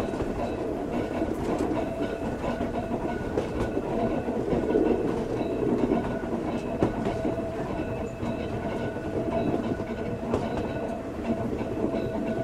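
Ueda Kotsu Moha 5253 'round-window' electric railcar running along the line, heard from its cabin: a steady rumble with a steady hum, and the wheels clicking over rail joints now and then.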